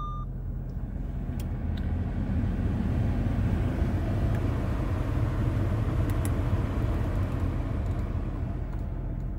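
Audi A4's 2.0-litre turbocharged four-cylinder engine idling just after a push-button start, a steady low hum heard from inside the cabin, swelling a little through the middle, with a few faint clicks.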